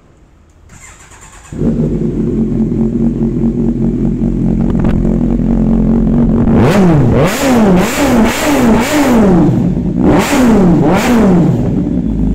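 Kawasaki Ninja 1000SX's 1043 cc inline-four with an Arrow aftermarket exhaust, starting about a second and a half in and idling. It is then revved in a quick run of throttle blips, each rising and falling in pitch, followed by a short pause, two more blips, and a return to idle.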